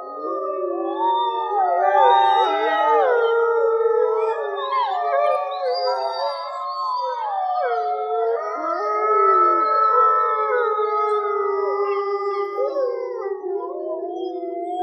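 Arctic wolf pack howling in chorus: several voices overlap, each long howl gliding up and down in pitch, loudest about two seconds in and again around ten seconds in.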